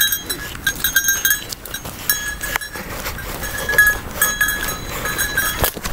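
Goat hooves and a person's footsteps scuffing and crunching over dry leaves, dirt and grass: irregular clicks and rustles, with a thin high ringing heard on and off.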